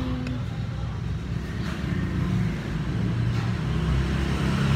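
Motor vehicle engines passing on the street, a steady low running that grows louder toward the end.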